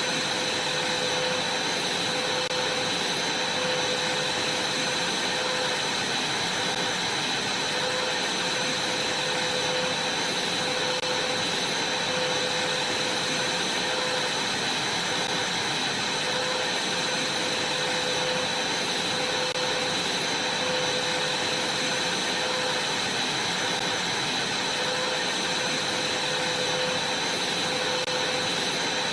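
Vacuum cleaner running steadily while vacuuming a trampoline: an even rushing hiss with a steady high-pitched whine over it.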